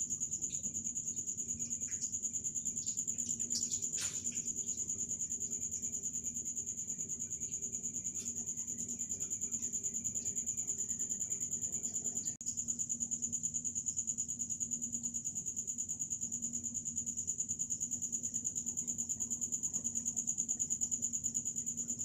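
Steady high-pitched chirring of crickets, with a low steady hum underneath and a few faint clicks.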